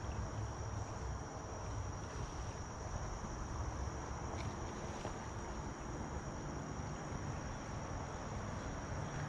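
Steady high-pitched insect chorus, one unbroken shrill tone, over a soft wash of stream water and a low rumble.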